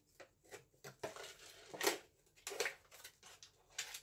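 Paper lid of a Shin Ramyun cup noodle being peeled back, rustling and crackling in short irregular bursts.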